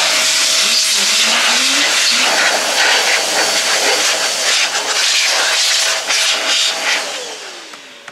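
Sin Shine handheld electric air duster running at full blast: a loud rush of air with a steady motor whine over it, blowing dust out of a computer case. About seven seconds in it is switched off, and the whine falls in pitch as the motor spins down and the rush of air fades.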